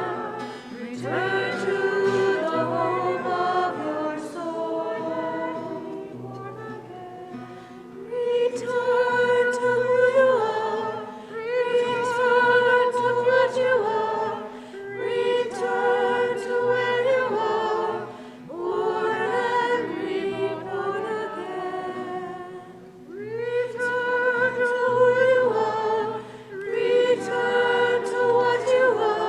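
Choir singing a slow piece in long held phrases of about two seconds each, with short breaks between them.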